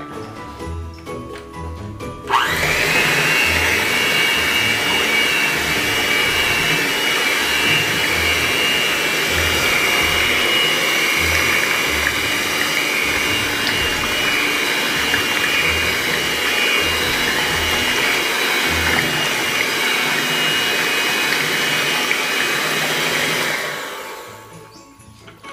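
Black+Decker electric hand mixer switched on about two seconds in, its motor running steadily with a high whine as the twin beaters churn batter in a stainless steel pot. It is switched off near the end and winds down. Background music with a steady beat plays throughout.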